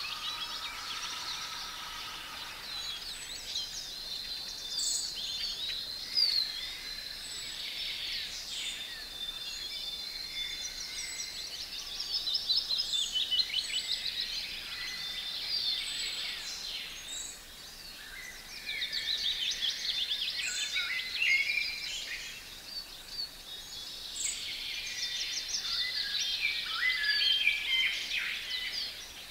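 Several songbirds singing at once: overlapping chirps, trills and whistles, over a faint steady hiss. The chorus thins briefly a couple of times.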